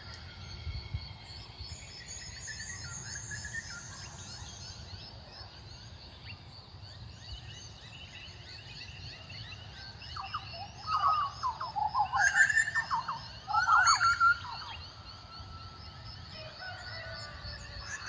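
Butcherbirds calling: a run of loud fluting, sliding notes starting about ten seconds in and lasting some four seconds, over a fainter high chirping that goes on throughout.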